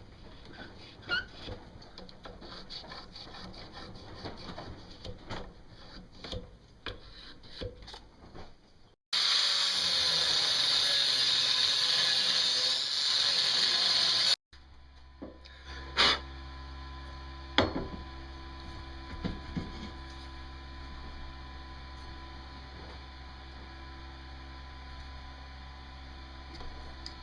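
Workshop metalworking sounds: small clicks and handling of parts, then a loud, steady power tool running for about five seconds, cut in and out abruptly. After that comes a steady low hum with a couple of sharp metal clanks.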